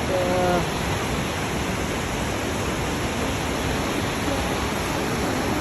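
Kegon Falls waterfall: a steady, even rush of falling water.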